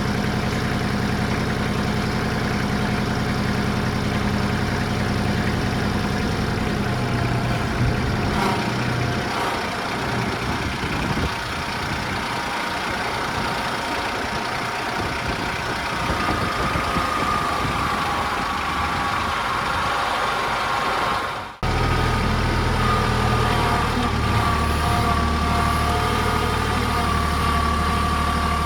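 Farm vehicle engine running at a steady speed. It drops out for a moment about three-quarters of the way through, then comes back louder with a steady high whine over it.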